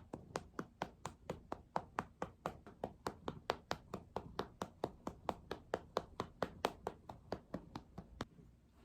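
A hand patting a cat's rump in a quick, even rhythm, about five pats a second, stopping shortly before the end.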